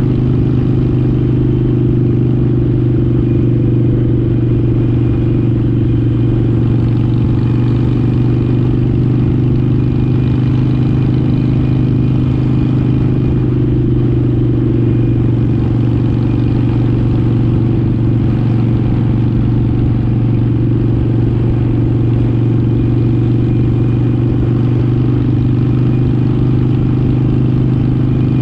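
Motorcycle engine and exhaust running at a steady highway cruise, a constant low drone that holds one pitch with no revving, mixed with wind and road rush from riding at speed.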